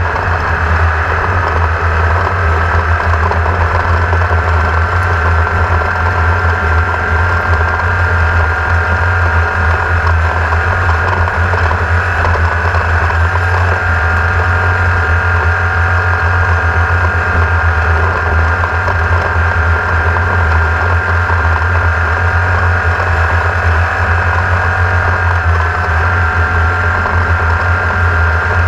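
An engine running steadily at an even speed: a strong low hum under a higher whine that creeps slightly upward in pitch.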